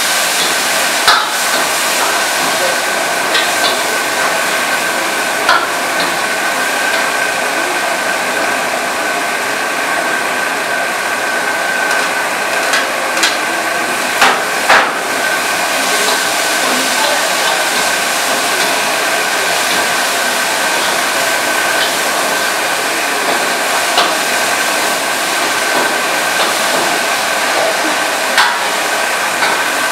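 Chicken stir-frying in a steel wok over a gas flame: a steady sizzling hiss, with a metal ladle stirring and now and then knocking sharply against the wok, several times.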